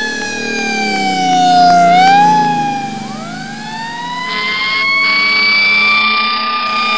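Fire truck siren wailing: the pitch falls over the first two seconds and fades, then winds slowly back up from about three seconds in. A second steady tone sounds twice near the end, briefly and then longer.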